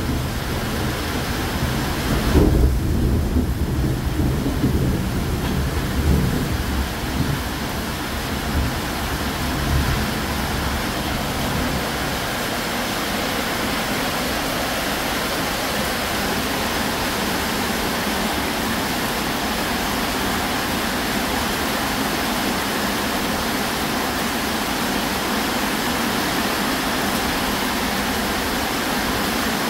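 Heavy rain pouring down steadily, with a long rumble of thunder over the first twelve seconds or so, loudest about two and a half seconds in; after that only the steady hiss of the downpour.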